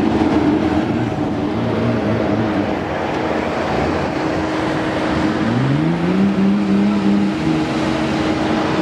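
Engines of wrecked demolition derby cars and a tracked skid-steer loader running, with one engine revving up about five and a half seconds in and holding at the higher speed.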